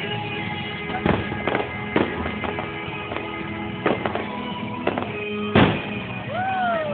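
Aerial fireworks shells bursting, about half a dozen sharp bangs with the loudest near the end, over steady background music.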